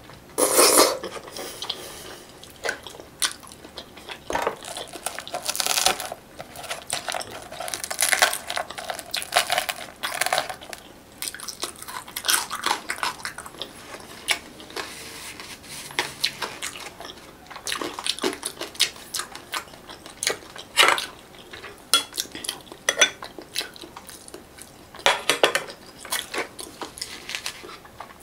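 Close-up eating sounds from a person eating fish by hand: chewing and mouth sounds, with irregular clicks and clinks as fingers and food touch the glass bowls.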